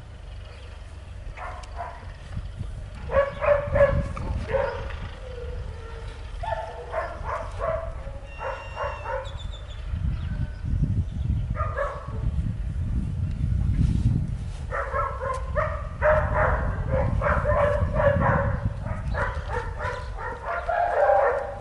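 A dog yipping and barking in repeated short high-pitched bouts, more continuous over the second half.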